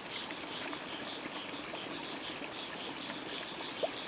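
Steady rushing, water-like noise, with a high chirp repeating about three times a second and one short knock near the end.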